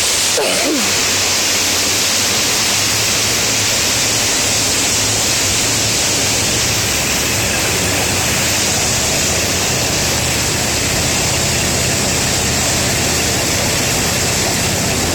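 Loud, steady rush of brown floodwater churning and splashing around a vehicle wading through a flooded street, with a low engine hum underneath.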